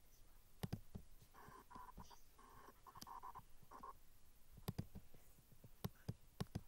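Scattered light clicks and taps of someone working a laptop's trackpad or touchscreen, irregular, with a quick pair about a second in and a cluster of several in the last two seconds. Otherwise close to near silence.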